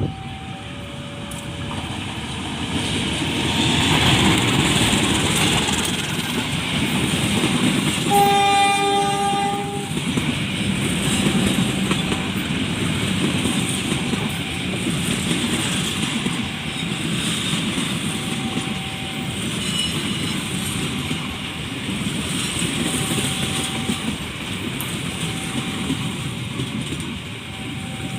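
A train running past with a continuous rumble and wheel clatter. Its horn sounds once, for about two seconds, some eight seconds in.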